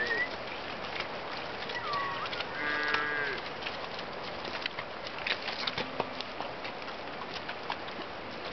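Dairy cow mooing once, a short call that falls in pitch at its end, about three seconds in, with a fainter low call near six seconds. Scattered short clicks and knocks throughout as the herd walks.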